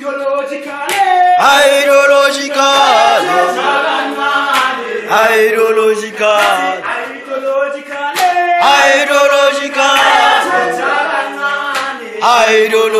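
A group of people singing and chanting a revolutionary struggle song together, several voices in harmony with long held phrases that repeat every few seconds. A few sharp knocks sound through the singing.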